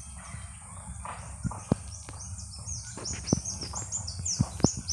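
Birds chirping in quick, repeated high falling notes, thickest in the second half, over a steady high hiss, with several sharp clicks standing out as the loudest sounds.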